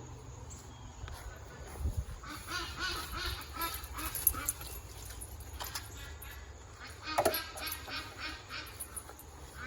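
Backyard poultry calling in runs of short, quick, nasal calls, with one louder, sharper call about seven seconds in.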